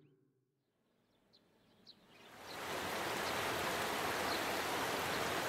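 Near silence for about two seconds, then the steady rushing of a waterfall fades in and holds, with a few faint high chirps over it.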